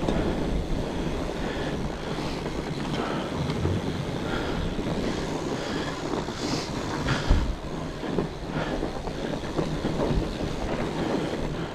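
Fat bike riding fast down a forest trail: the steady rough rolling noise of the wide tyres and the bike rattling over the ground, with a sharper jolt about seven seconds in.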